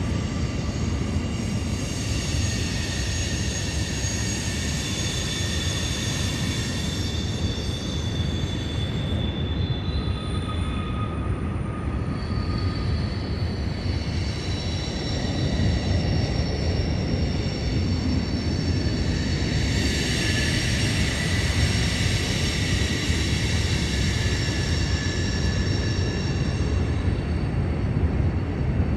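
Freight train rolling by with a steady low rumble, its wheels squealing in several high, drawn-out tones that fade out for a few seconds in the middle and then return.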